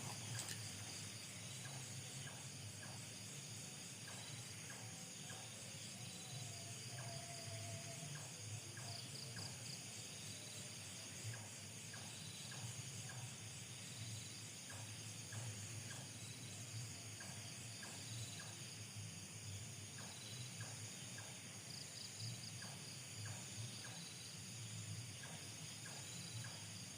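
Nighttime chorus of crickets and other insects shrilling steadily at several high pitches, with scattered faint ticks and a brief low call about seven seconds in.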